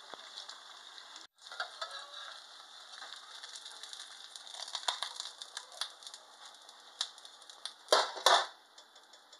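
Metal spatula scraping and clicking in a stainless steel frying pan as a thin pancake frying in oil is worked loose and lifted out, over a steady light sizzle. Two loud clatters close together near the end.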